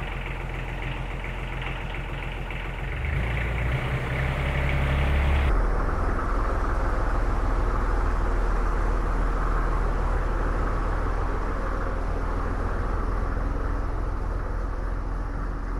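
Kubota D1105 three-cylinder diesel engine of a Massimo T-Boss 1100D UTV running steadily, getting louder about three seconds in as the machine pulls away and drives off.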